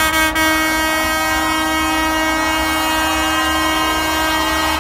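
A vehicle horn sounded in one long, steady blast at a single pitch, cutting off at the end, over the low noise of a large crowd.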